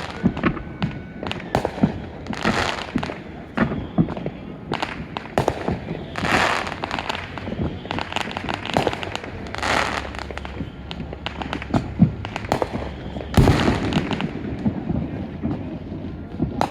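Fireworks going off repeatedly: a steady run of sharp bangs and pops mixed with several longer crackling bursts, with a loud bang about twelve seconds in and a heavy burst just after it.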